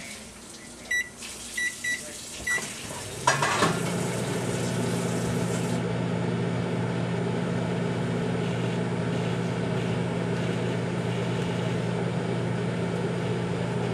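Microwave oven keypad beeping four times as it is set, then a click as it starts, followed by the steady hum of the oven running.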